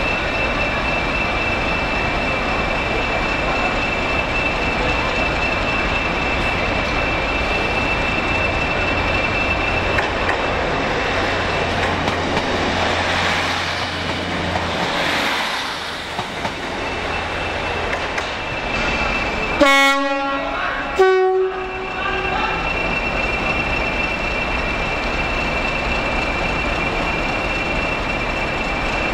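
Train running with a steady rumble. About two-thirds of the way through, a two-tone train horn sounds: a short low note, then a longer, higher note.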